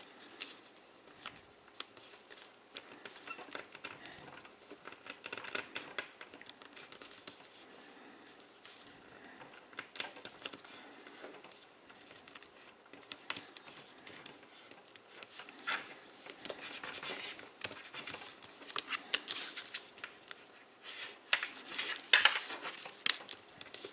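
Stiff folding paper rustling and crinkling as it is folded and pressed into creases by hand, in short crackly bursts that come more often in the second half.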